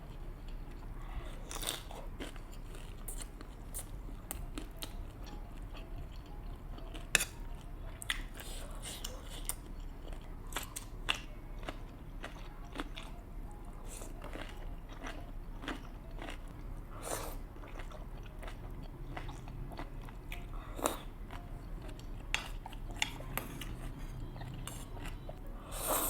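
Close-miked mukbang eating of spicy noodles with dumplings, egg and kimchi: wet chewing, crunching and biting, with many scattered sharp clicks and smacks. A steady low hum runs underneath.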